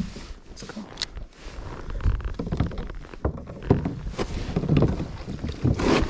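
Water splashing and knocks against a plastic fishing kayak as a hooked bass is brought alongside and scooped into a landing net. The splashes and thumps come irregularly and get busier about two seconds in.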